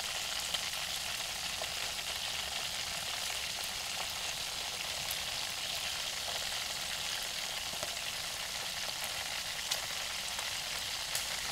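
Chicken drumsticks frying in a pan of plenty of hot oil: a steady sizzle, with a few faint clicks.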